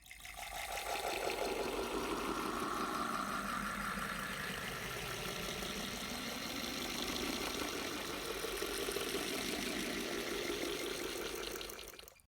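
Water poured into a glass in one continuous pour of about twelve seconds, starting and stopping abruptly.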